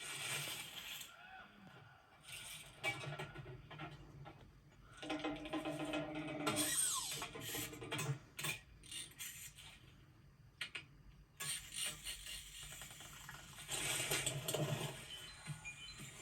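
Cartoon sound effects: clicking and ratcheting mechanical noises with scattered knocks. A steady pitched tone sounds for about a second and a half in the middle, followed by a short rising glide.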